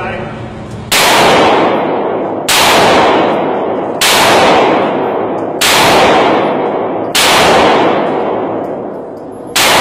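Handgun firing six single shots, evenly spaced about one and a half seconds apart, each a sharp crack followed by a long fading tail in the indoor range.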